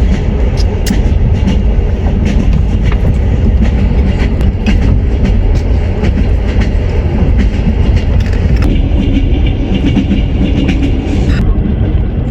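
Train wheels rumbling steadily on the rails, with irregular clacks as they run over the joints. The higher hiss over the rumble dulls suddenly near the end.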